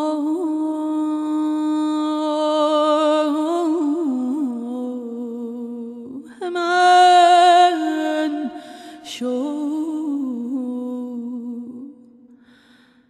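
A woman singing in Persian classical vocal style, drawing a syllable out into long melismatic phrases with quick warbling ornaments. The voice leaps higher and is loudest about six and a half seconds in, then sinks and fades out near the end.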